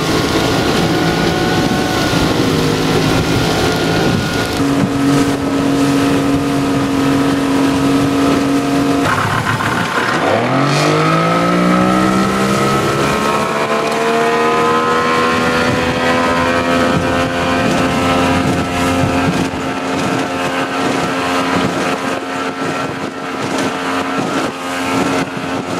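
Yamaha 90 hp two-stroke outboard running at speed, pushing the boat hard. About nine seconds in the engine note falls low, then climbs steadily over several seconds as it accelerates again.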